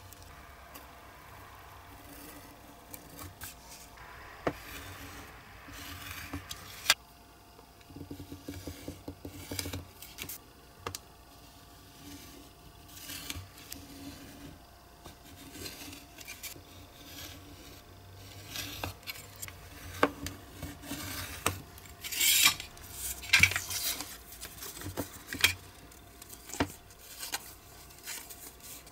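Snap-off utility knife scoring and cutting thin printed card along a metal ruler on a cutting mat, with scraping strokes and small clicks and taps. Louder crackling of stiff card in the later part as the cut box is creased and folded.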